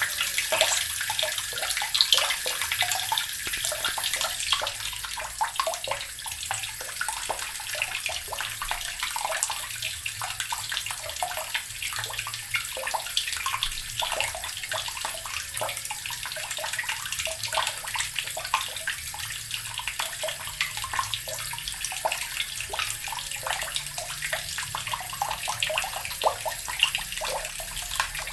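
Water running steadily from a tap and splashing into the water below, with a constant hiss and small irregular splashes.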